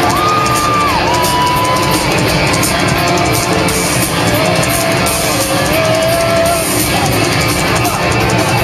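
Live rock band playing an instrumental passage: loud electric guitars holding notes that slide between pitches over a drum kit with busy cymbals.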